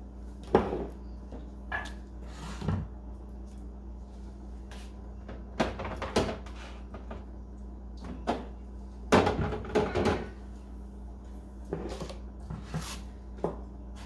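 Irregular knocks and clatter of bottles, containers and plastic bins being set back on the shelves and into the drawers of a refrigerator, busiest about nine to ten seconds in, over a steady low hum.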